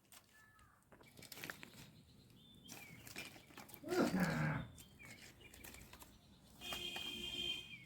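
Livestock calling: a loud call that falls in pitch about four seconds in, and a higher, steady held call near the end. Scattered knocks and clicks come between them.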